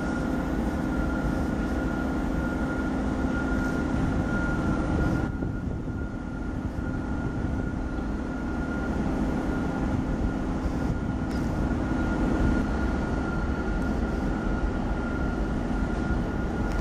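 Double-stack container freight train rolling past: a steady low rumble with a constant high whine over it.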